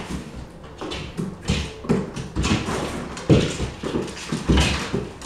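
Cats' paws thumping and scrabbling on a hardwood floor as they leap and chase, in irregular knocks and scuffs.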